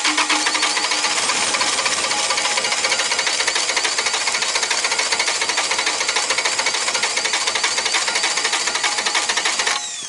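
Carrier 1550 reefer unit's diesel engine cranking on its starter motor, a loud, steady, rapid clatter that cuts off about ten seconds in with a falling whine as the starter winds down. The fuel system has just been bled by hand after the unit ran out of fuel.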